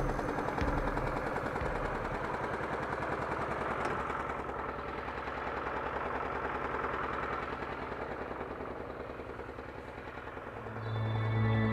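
An engine running with a fast, even putter that grows gradually fainter. Background music comes in near the end.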